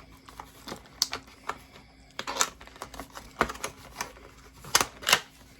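Irregular clicks, taps and brief rustles of packaging and small parts being handled as an accessory rail is unpacked, with the loudest clicks near the end.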